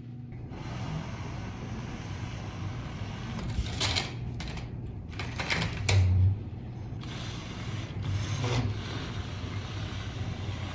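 LEGO SPIKE Prime robot's small electric motors whirring steadily as it drives slowly and raises its arm, with a few short clacks and a dull thump about six seconds in.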